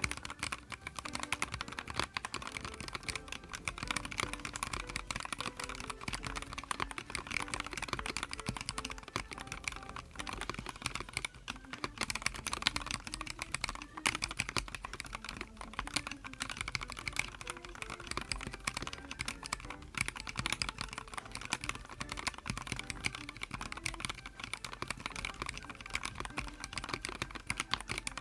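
Continuous fast typing on a YUNZII X75 PRO gasket-mounted mechanical keyboard: a dense, unbroken stream of key clicks.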